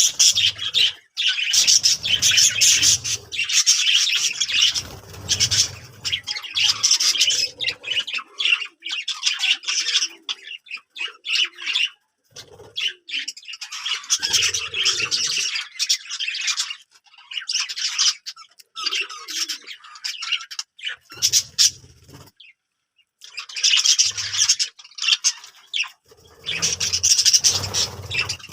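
Budgerigars chattering and warbling in bursts of busy high twittering, with short gaps between bursts. Some bursts come with dull low thumps.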